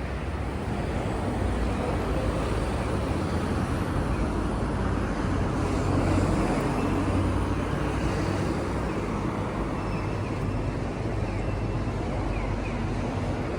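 Steady outdoor ambient noise: an even rushing wash over a low rumble, like distant traffic or wind.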